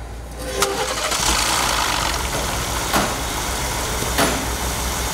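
2018 Ford F-150's twin-turbo EcoBoost V6 starting up, then running at a steady idle, with a few sharp clicks about half a second, three and four seconds in.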